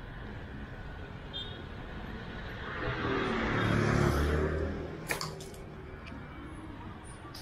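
A motor vehicle passing close by: its engine swells up over about two seconds and fades again, over a steady low rumble. A brief rattle of sharp clicks comes just after the engine peaks.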